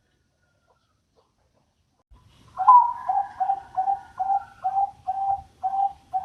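A dove calling: after a short quiet, one opening note, then a quick run of short, evenly spaced coos, about two a second.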